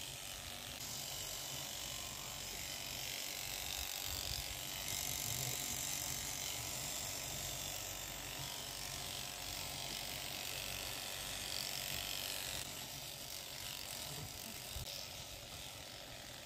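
Electric sheep shears running steadily as they cut through a Shetland sheep's fleece.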